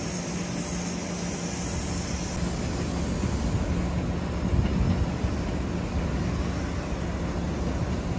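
Steady outdoor rumble of engines and traffic with a low, even engine hum, swelling slightly about halfway through.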